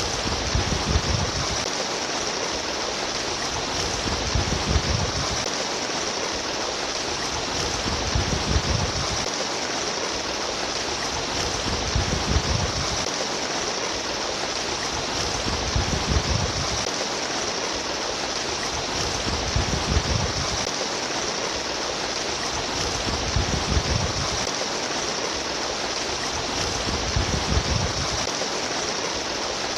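Steady babbling stream water, with a low surge swelling about every four seconds.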